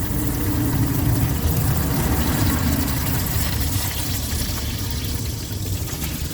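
Water streaming steadily out of an engine's oil pan drain hole into a catch pan. The sump holds water instead of oil, which is why the engine seized.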